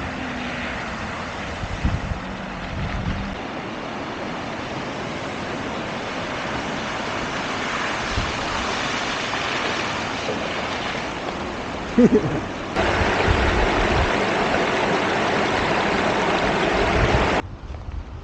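Steady rush of river water, with wind buffeting the microphone now and then. The sound jumps louder suddenly about 13 seconds in and drops away sharply near the end.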